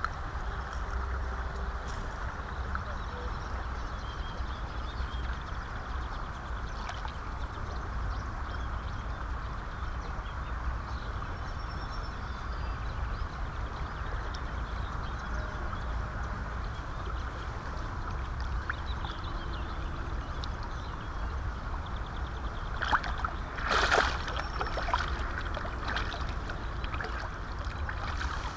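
Steady rush of flowing river water. Near the end there is a loud burst of splashing as hands and a freshly caught asp are lowered into the shallows to release the fish.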